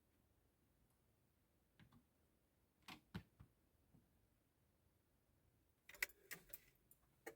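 Near silence broken by a few faint, short clicks and knocks, with a small cluster of them about six seconds in.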